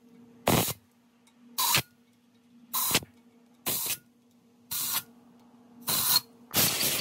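Compressed-air blow gun giving short blasts of air, about one a second, into the coolant passages of a 2JZ engine block to clear out cleaning fluid and debris, then a longer continuous blast near the end. A faint steady hum sounds between the blasts.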